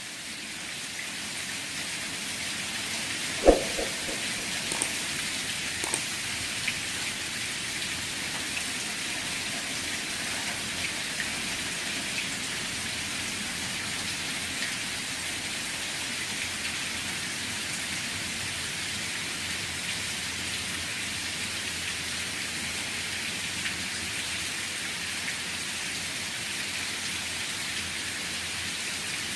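Steady rain falling, fading in over the first couple of seconds, with scattered louder drips. A single sharp knock stands out about three and a half seconds in.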